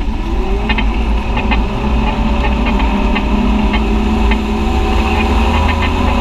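Side-by-side UTV engine running steadily as the vehicle drives through muddy trail water, its pitch rising a little in the first second. Light clicks or rattles come through now and then over the low rumble.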